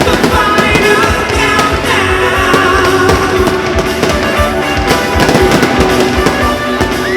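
Loud rock music with singing, with fireworks bursting and popping over it throughout.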